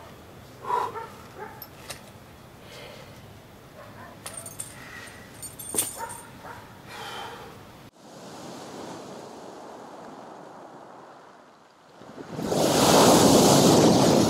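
Sea surf washing on a pebble beach, then a wave breaking and splashing hard against a concrete pier footing, much the loudest sound, in the last two seconds or so. Before that, a few short sounds stand out over a quiet background.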